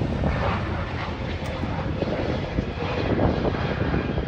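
Twin-engine jet airliner's engines at takeoff thrust as it climbs out just after lift-off: a steady, loud rumbling noise.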